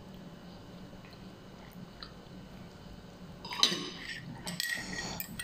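Close-up eating noises from a person eating noodles with a fork. It is mostly quiet at first, then about three and a half seconds in comes a short run of wet mouth clicks and smacks with light clinks.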